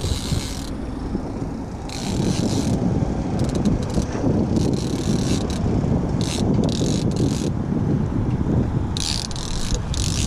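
Fishing reel ratcheting in short bursts of clicking, repeated every second or two, as a hooked fish is fought on the rod, over a steady low rushing noise.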